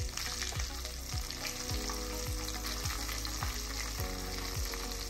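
Hot oil sizzling in an aluminium pot as spoonfuls of chilli pickle masala powder are dropped in. Background music with a steady low beat, about two beats a second, runs underneath.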